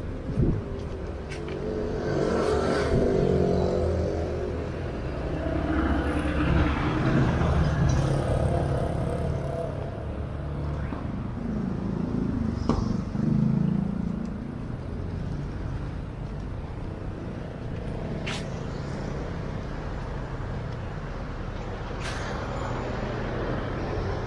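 Street traffic: motor vehicles passing close by with engines running, loudest during the first half, then settling to a steadier background hum with a couple of sharp clicks near the end.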